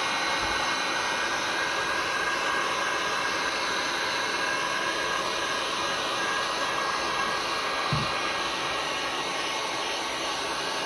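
Handheld heat gun blowing steadily, held high over a mold brim-full of freshly poured resin.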